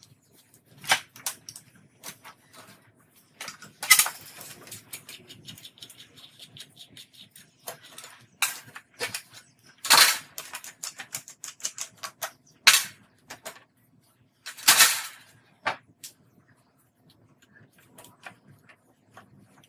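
Irregular clicks, knocks and scrapes of hard plastic and metal fan parts being handled and worked on, with a few louder clacks and a faint steady low hum underneath.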